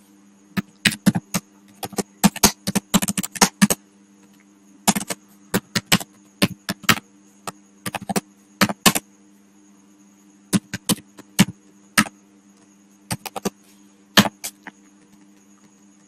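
Computer keyboard typing: irregular runs of keystrokes with short pauses, stopping near the end. A steady low electrical hum lies underneath.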